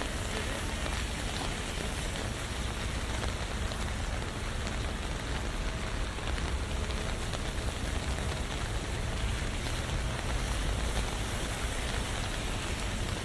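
Steady rain falling on an umbrella, with a low rumble underneath.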